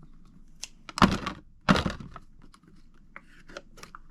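Toy blind-pack packaging being handled: light rustling and small clicks, with two louder short knocks, one about a second in and another just after.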